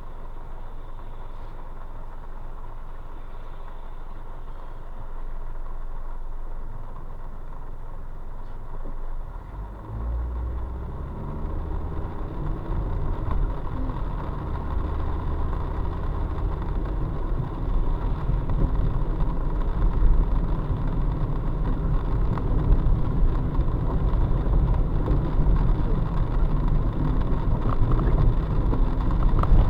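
Car cabin noise: low engine and road rumble, quieter for the first ten seconds, then growing louder and fuller as the car picks up speed.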